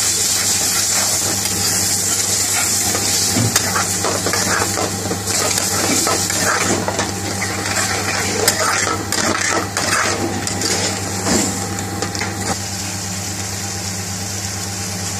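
A metal spoon stirring and scraping a pan of curry, with irregular clinks against the pan, over a steady background hum. The clinking stops about three-quarters of the way through, leaving only the hum.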